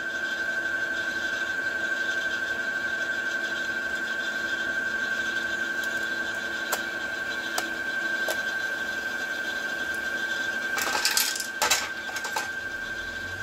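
Brother XR1355 sewing machine's motor running steadily at fast speed with a high whine while it winds a bobbin. A few sharp clicks come around the middle, and a short burst of clicking and clatter comes near the end.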